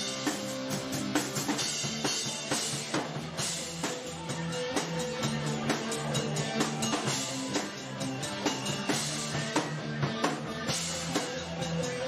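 Background music with a steady drum-kit beat, bass drum and snare, over held pitched notes.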